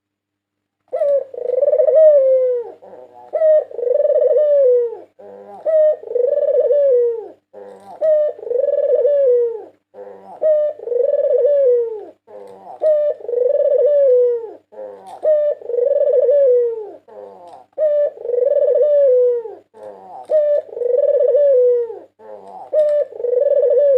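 White Barbary dove (puter putih) cooing over and over: about ten calls, each a short stuttered note running into a long, rounded coo, one roughly every two and a half seconds, starting about a second in.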